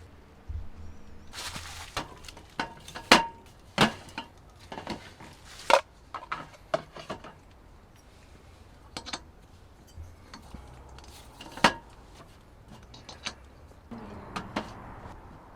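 Cookware and utensils clinking and knocking in an irregular run of sharp taps, some with a short metallic ring, with a brief rustle about a second and a half in.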